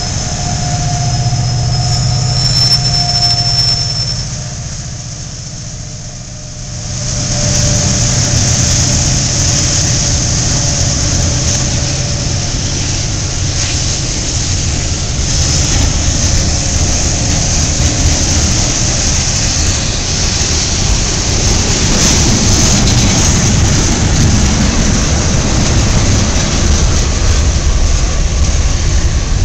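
A freight train rolling past close by, its wheels squealing on the rails over a steady rumble. A diesel locomotive's engine is heard in the first few seconds, the sound drops for a moment about five seconds in, and then a long string of freight cars runs by with a continuous high squeal and hiss from the wheels.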